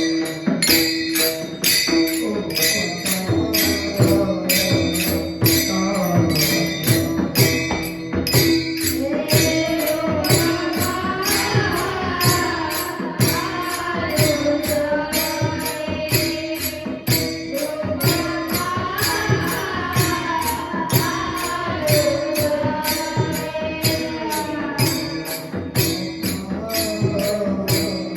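Marathi kirtan music: a fast, steady beat of small hand cymbals with drum strokes under a held drone, and a voice singing a wavering devotional melody.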